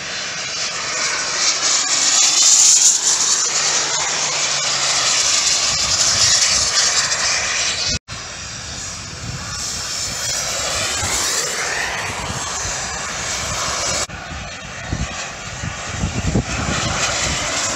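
Engines of several radio-controlled model warbirds flying past in formation, their pitch sliding up and down as they pass. The sound breaks off abruptly twice, about 8 and 14 seconds in.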